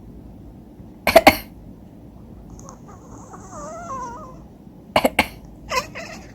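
A person coughs sharply twice about a second in, and a cat answers with a quiet, wavering chirping chatter. Two more quick coughs come near the end, followed by another short sound.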